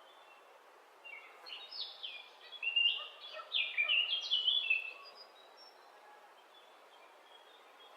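Birds chirping: a quick run of short, high, falling chirps for a few seconds, then only a faint steady hiss.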